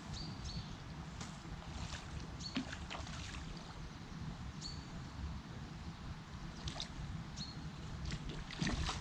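Water sloshing and splashing at the river's edge as a hooked bream is played in and landed, with scattered clicks and handling knocks that come thicker near the end. A few short high chirps sound over it.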